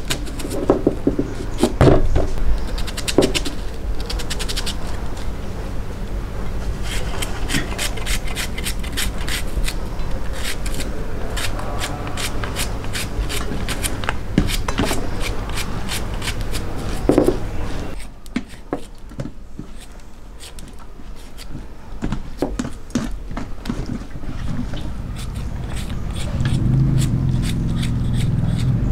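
A large kitchen knife slicing a red onion held in the hand, with no board: a long run of short, crisp cuts and scrapes of the blade, thickest in the middle. Near the end the knife is slicing a green chilli. A steady low hum runs underneath.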